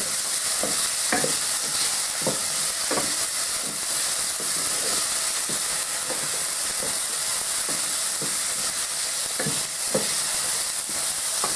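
Sliced yellow and green peppers sizzling in a frying pan, a steady hiss that is stronger because the watery peppers are giving off their juices. A utensil stirring them scrapes and knocks the pan in short, irregular strokes.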